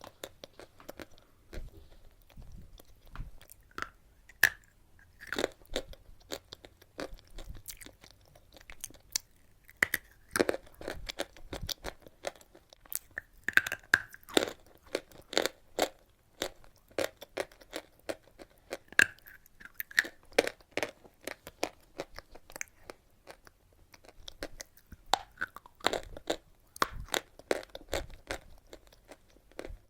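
A person biting and chewing chalk close to the microphone: irregular crisp crunches and crackles, coming in clusters with short lulls between them.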